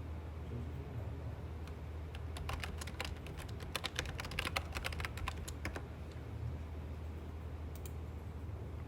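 Typing on a computer keyboard: a fast run of keystrokes through the middle, with sparser taps before and after, over a steady low hum.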